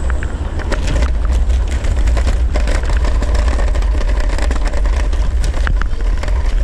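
Wind buffeting the microphone of a rider on a Segway Ninebot electric kick scooter, with the scooter rattling and clattering over brick paving in rapid irregular clicks from about a second in.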